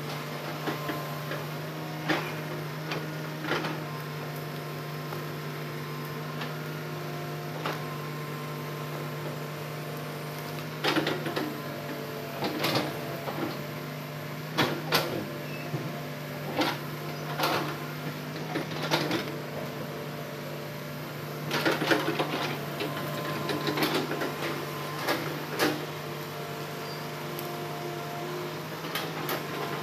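Hitachi hydraulic excavator's diesel engine running steadily while the machine slews and works its bucket among felled logs. Clusters of knocks and clanks come from the bucket and logs, mostly a third of the way in and again past the middle.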